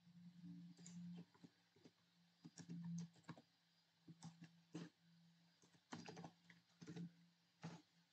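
Faint computer keyboard typing: irregular, quick keystrokes in short runs, over a low steady hum.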